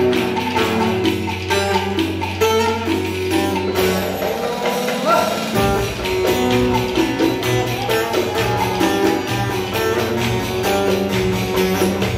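Ankara folk dance tune (oyun havası) played live: a fast plucked-string melody over a steady percussion beat, with the bass line shifting about five seconds in.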